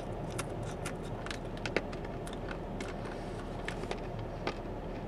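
Dried banana chips crunching between the teeth: a string of irregular sharp cracks a few tenths of a second to a second apart, over the steady low hum of the car's interior.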